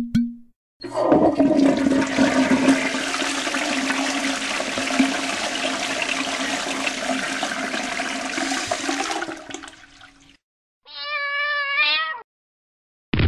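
Toilet flushing: a long rush of water that fades out after about nine seconds, followed by a short wavering cat meow.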